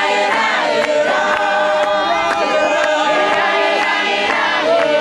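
An Apostolic church congregation singing together, many voices at once, holding notes and sliding between them.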